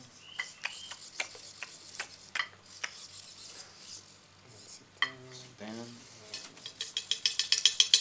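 Animatronic parrot rummaging among hard plaster-cast pieces: scattered clicks and light clatters. There is a short voice-like call about five seconds in. Near the end comes a fast, even rattling as its feathered wings flap.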